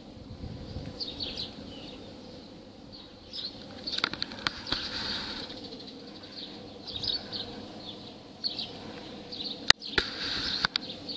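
Short, high chirps of small birds, coming in clusters every second or so over a low steady background, with two sharp clicks near the end.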